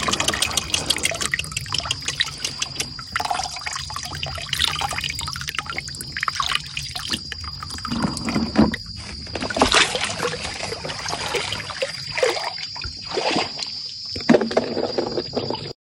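Water sloshing, trickling and splashing as a gold pan is swirled in stream water to wash out sediment, with water spilling off the pan's rim. A steady high whine runs underneath.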